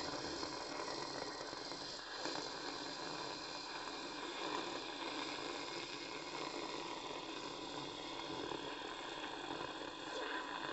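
Television static sound effect: a steady fizzing hiss.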